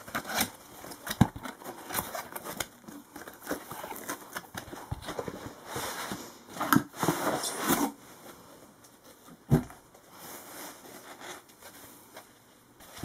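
A cardboard model box and its foam packaging being opened by hand: scraping, sliding and rustling of cardboard, with scattered soft knocks. The sharpest knock comes about nine and a half seconds in.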